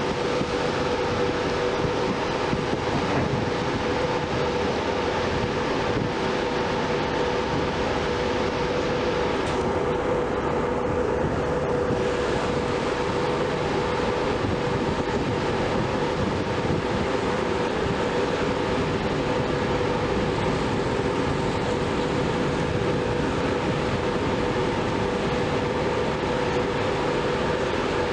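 The car ferry MV Caledonian Isles under way: a steady drone of the ship's machinery with a constant hum, under an even rush of air and passing water.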